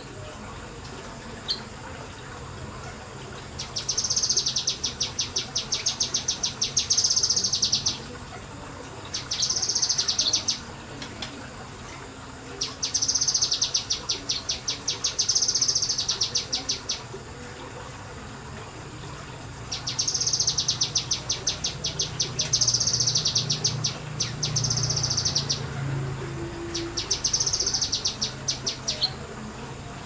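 Kinoi (blue-masked leafbird) singing in five long bursts of very rapid, high repeated notes, each burst a few seconds long with short pauses between. This is the fast, loud 'nembak' delivery that keepers prize.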